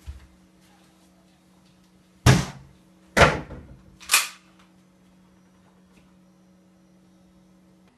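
Three loud bangs on a wooden door, about a second apart, each a sharp blow that rings off briefly, over a faint steady hum.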